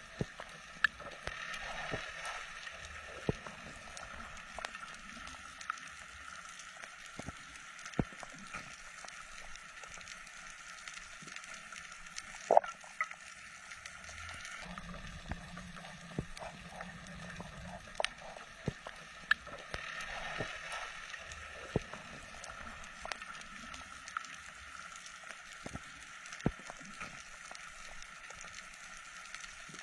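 Underwater ambience during a spearfishing dive: a steady hiss sprinkled with scattered sharp clicks and crackles, with a few swells of bubbling and gurgling.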